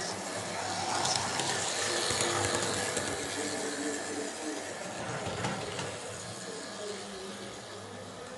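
Model railway locomotives running on the layout: a steady whine from the small electric motors and a light clatter of wheels on the rails, with a few sharper clicks.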